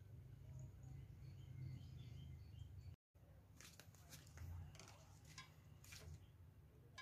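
Near silence: faint outdoor background with a few small bird chirps in the first half. After a brief cut, faint clicks and rustles of hands handling the rubber anode cap on the picture tube.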